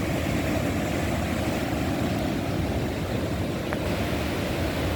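Ocean surf on the shore, a steady low roar with no single wave standing out.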